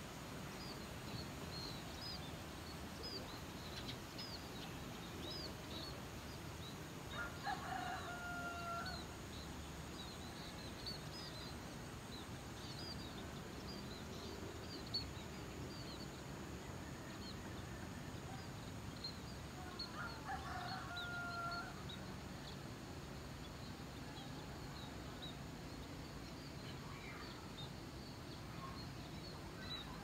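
A rooster crowing twice, about twelve seconds apart, each crow lasting about a second and a half. Short, high chirps of small birds come and go throughout, over a steady low background hum.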